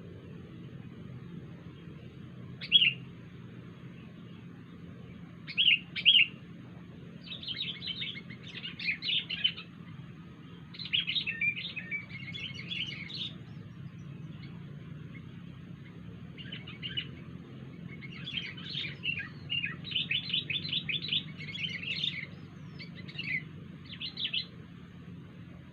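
Sooty-headed bulbul (kutilang) calling: three or four sharp single notes, then bursts of fast, chattering song. A steady low hum runs underneath.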